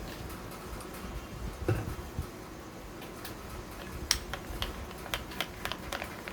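Gram-flour batter being mixed into a thick paste in a bowl: a dull bump about a second and a half in, then irregular light clicks and taps of the mixing against the bowl from about four seconds in.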